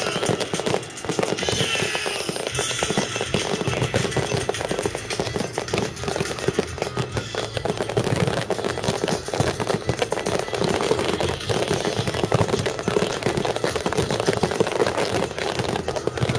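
Fireworks finale: a continuous barrage of aerial shells bursting and crackling, bang upon bang with no pause between them.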